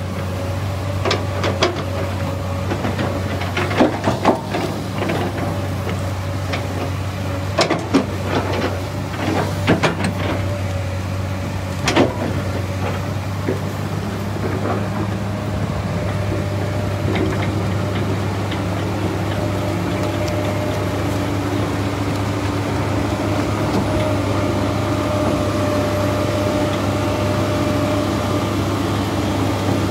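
A vehicle engine running steadily, with scattered knocks and rattles over the first twelve seconds or so.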